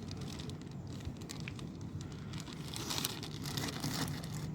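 Plastic wrapping crinkling in irregular bursts as the bread dough is handled and unwrapped, over a steady low hum.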